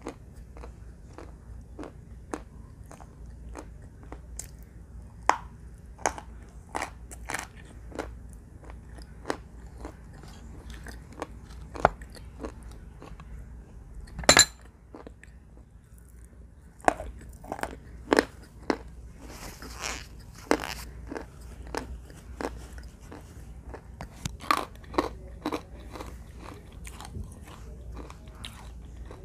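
Close-up biting and crunching of pieces of baked clay: irregular sharp crunches and chewing throughout, the loudest crunch about halfway through.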